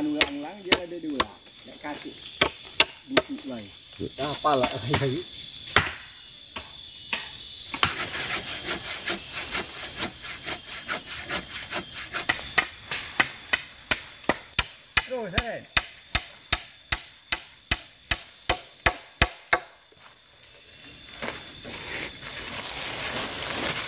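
Hammer blows on wood: a long run of sharp knocks through the middle, settling to about two a second, over a steady high drone of forest insects.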